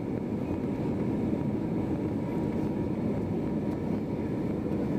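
Steady cabin noise inside an Airbus A321 moving on the ground after landing: an even engine and rolling rumble with a faint steady tone above it.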